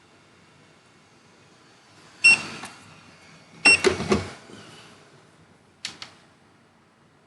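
Objects being handled and set down on a work surface: three short clattering bursts of knocks and rattles, the second the longest and loudest, the first two with a brief metallic ring.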